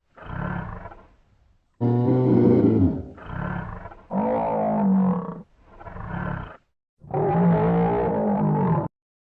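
Buffalo calling: six separate calls with silence between them, short rough grunts alternating with longer, pitched bellows.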